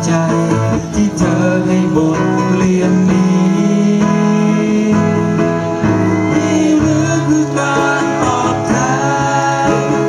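Live band performing a Thai song: a man singing into a microphone over acoustic guitar accompaniment.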